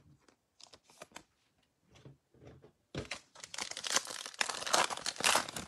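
Light ticks of trading cards being handled, then from about three seconds in a foil trading-card pack wrapper being torn open and crinkled, much louder than the handling.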